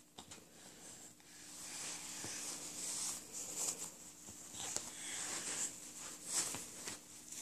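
Cloth pocket diaper rustling and rubbing in irregular swishes as small hands stuff the absorbent insert into the shell, with a few light ticks, over a faint steady hum.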